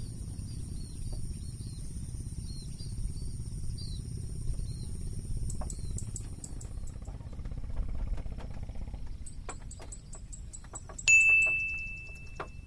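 Outdoor ambience over a steady low wind rumble, with small birds chirping repeatedly through the first half. About 11 s in, a sudden bright ringing tone sounds and fades over about a second.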